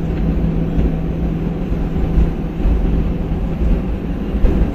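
Cabin noise inside an Airbus A320 rolling out on the runway just after touchdown: a steady low engine drone and wheel rumble with a constant low hum.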